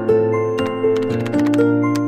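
Background music: a light melody of short, quickly struck notes over held low notes.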